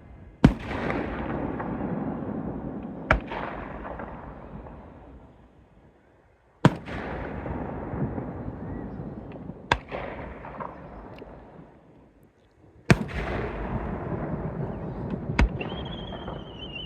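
Aerial fireworks shells bursting: three loud booms about six seconds apart, each trailing off in a few seconds of crackle and rumble, with a sharper second bang about two and a half seconds after each one. A high, wavering whistle starts near the end.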